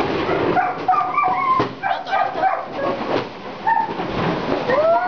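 A dog yelping and whining in short high calls, with one rising whine near the end. Sharp pops from New Year firecrackers go off throughout.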